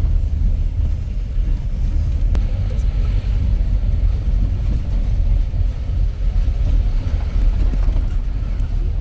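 Steady low rumble of a jeep driving along a rough track.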